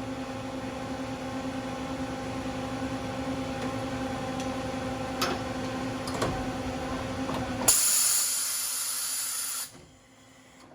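Mazak MT V-550A CNC vertical mill running a tool change: steady machine hum with a couple of clicks. About eight seconds in comes a loud hiss of air for about two seconds, then the hum drops away sharply.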